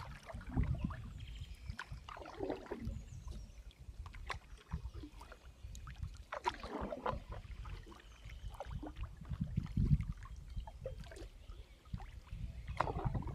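Canoe being paddled: a few slow paddle strokes swishing through the water over a low rumble.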